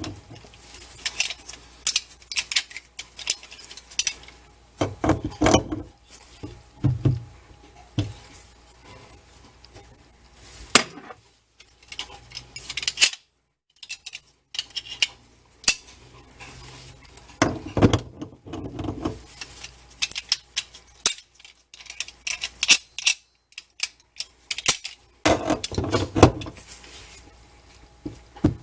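Irregular metallic clinks, clanks and knocks of hand tools and sink drain parts being handled and tightened, in clusters, with a brief silent break about 13 seconds in.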